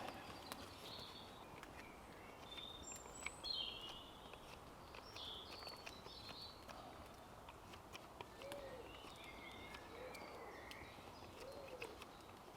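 Quiet woodland birdsong: small birds chirping on and off, and a pigeon cooing softly several times in the second half.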